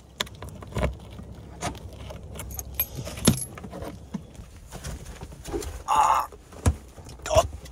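Keys jangling and a key being worked in a Land Rover Defender's door lock, then the latch clicking, with one sharp click about three seconds in, and the door swinging open. Knocks and rustling follow as he climbs up into the driver's seat, with wind rumbling on the microphone.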